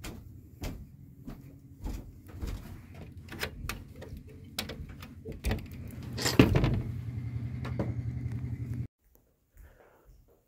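Footsteps and knocks on a wooden floor, roughly one every half second to second, with a louder knock about six seconds in. A steady low hum follows and cuts off abruptly about nine seconds in, leaving only a few faint knocks.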